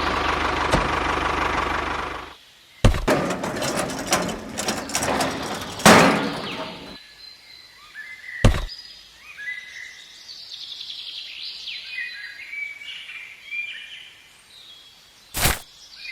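Small birds chirping in short repeated calls through the second half, with a few sharp knocks. It opens with a loud, steady noise that cuts off abruptly about two seconds in.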